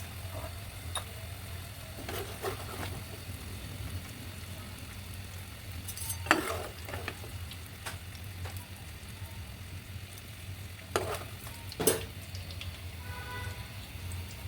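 Spring rolls sizzling as they fry in hot oil over a low steady hum, with a few sharp knocks of a utensil against the pan as they are turned.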